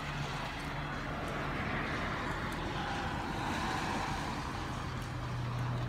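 Steady hiss of a rain shower under a passing engine drone that swells through the middle and slides down in pitch.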